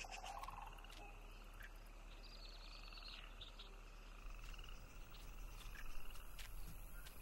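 Sandhill cranes giving their rolling, rattling territorial calls, a series of calls one after another.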